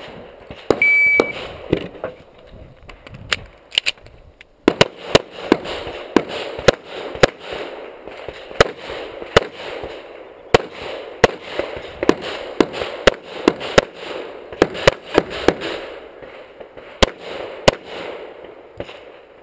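An IPSC shot timer beeps once about a second in, then a pistol fires a long run of rapid shots, many in quick pairs, through the rest of the stage.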